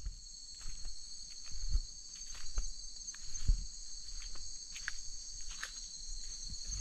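A steady, high-pitched chorus of night insects, with footsteps and rustling through undergrowth giving soft thuds about once a second.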